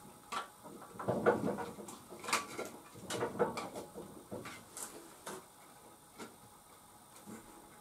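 Irregular clicks, taps and rustling from hands working small parts and cables on a moped. The sounds are busiest in the first half and thin out after about five seconds.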